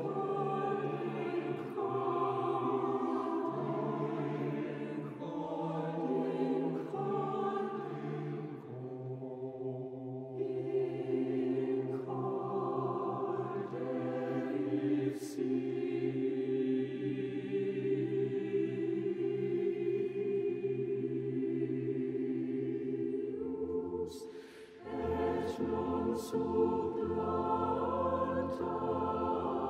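Mixed choir singing a classical choral piece. Men's voices sing first, then higher women's voices from about ten seconds in, and after a brief break near the end the full choir comes in, fuller and deeper.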